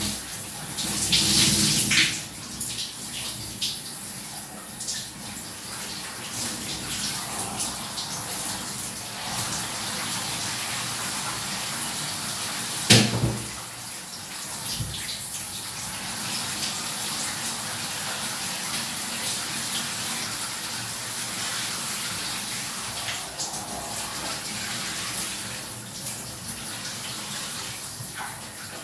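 Shower water spraying steadily from a showerhead, with a louder splashing spell about a second in. A single sharp knock about halfway through is the loudest sound.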